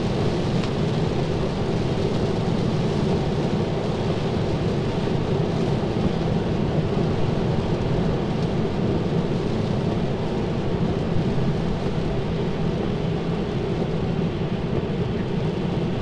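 Steady heavy rain on a moving car, mixed with tyre noise on the wet road, heard from inside the cabin of a Tesla Model 3.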